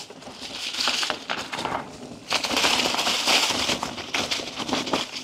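Mountain bike ridden hard through flat dirt corners, its tyres crunching and sliding over the trail. There are two surges of crackly hiss, and the second is longer.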